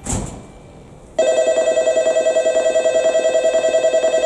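Shinkansen platform approach alarm bell starts about a second in: a loud, fast, steady electronic bell trill that signals a train entering the platform. A brief rush of noise comes just before it.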